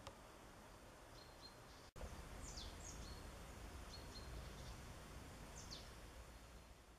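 Quiet outdoor ambience with a few faint, high, thin bird calls: short level chirps and several quick downward-sliding calls. About two seconds in, the sound drops out for a moment and comes back with a low rumble underneath.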